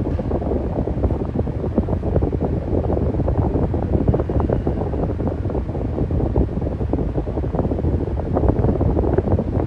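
Electric fan running steadily, its airflow rushing and buffeting against the microphone as a low, even rumble.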